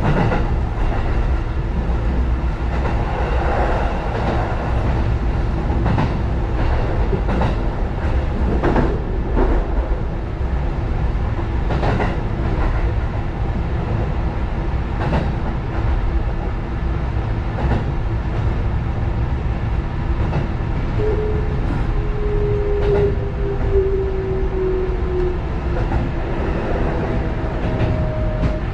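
Sanyo Electric Railway 6000 series electric train running along the track, heard from inside the driver's cab: a steady rumble with irregular clicks of the wheels over rail joints. About two-thirds of the way through, a whining tone slowly slides down in pitch.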